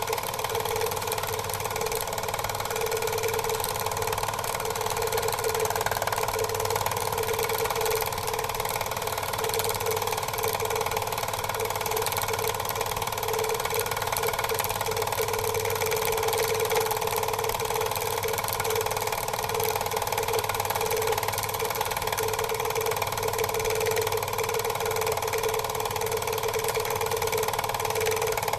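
Steady whir of small electric motors running without a break, a constant hum with a slight pulse and a hiss over it.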